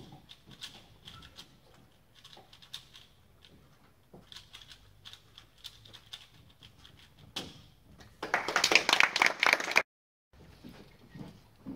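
Faint, rapid plastic clicking of a 3x3 speedcube being turned. About eight seconds in comes a much louder burst of dense crackling that lasts about a second and a half and cuts off suddenly.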